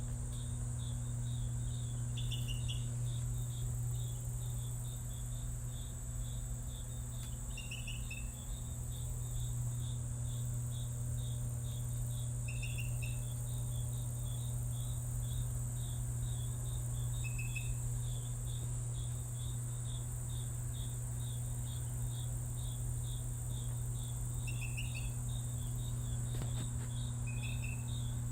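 Night-time crickets chirping in a steady, regular rhythm of a couple of chirps a second, with a second, lower-pitched caller chirping now and then and a continuous high insect trill behind them. A steady low hum runs underneath.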